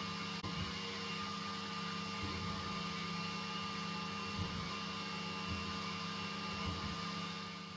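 PAWZ 7-in-1 pet grooming kit's vacuum unit running, a steady motor hum with a fixed whine over it, fading out at the very end.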